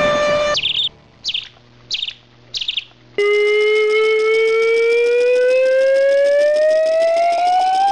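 A steady siren tone cuts off suddenly, and four short high chirps follow in the quiet. Then, about three seconds in, an air-raid siren starts and its pitch rises slowly and steadily.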